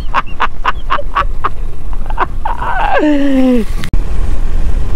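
Men laughing in quick, rapid bursts, ending about three seconds in with a long drawn-out laugh that falls in pitch. After an abrupt break, steady wind rumble on the microphone over the water.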